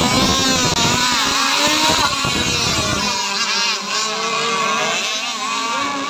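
Several radio-controlled racing powerboats running flat out together, their small engines whining in overlapping pitches that rise and fall as the boats turn and pass. A low rumble underneath stops about three seconds in.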